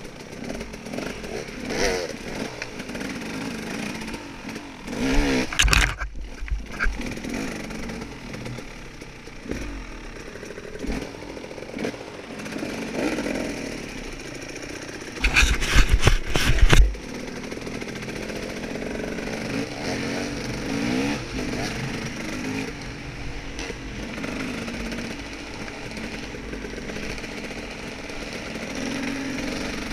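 Dirt bike engine running and revving up and down through the woods, its pitch rising and falling with the throttle. It grows louder and rougher briefly about five seconds in and again for a couple of seconds around the middle.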